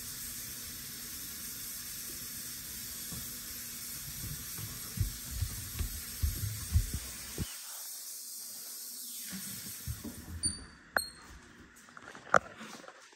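Kitchen tap running steadily into a sink, with low thumps partway through as a spider monkey handles the recording device. About ten seconds in, the water sound drops away and sharp knocks and rubbing follow as the device is picked up and carried.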